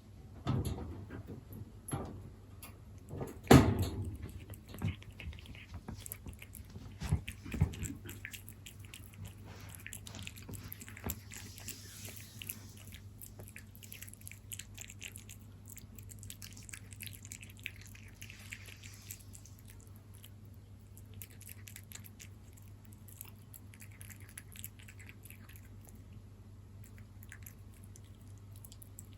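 A cat chewing and lapping moist salmon wet cat food, a steady run of small wet clicks and smacks. A few louder knocks come in the first eight seconds.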